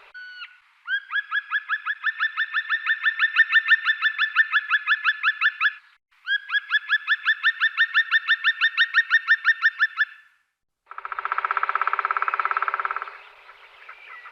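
Black woodpecker calling in two long series of repeated ringing notes, about seven a second, each series four to five seconds long. Near the end comes a drumming roll of about two seconds, a very fast run of bill strokes on wood.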